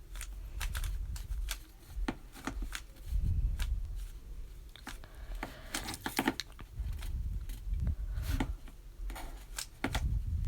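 Plastic Rubik's cube being turned by hand: quick, irregular clicks and clacks as its layers rotate, over a low handling rumble.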